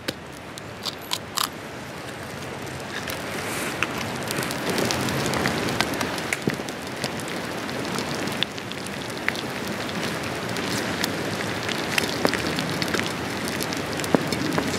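Eggs sizzling as they fry on a hot flat stone over a campfire: a steady spattering with many scattered sharp pops. A few sharper clicks about a second in.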